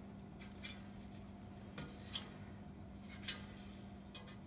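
Faint, scattered metallic clicks and taps of a wrench working the left-hand-thread fan clutch nut on a Ford 7.3 IDI diesel, over a steady low hum.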